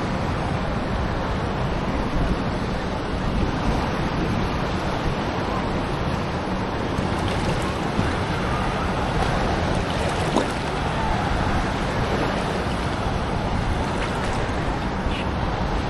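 Ocean surf washing steadily around a wader, with wind buffeting the microphone.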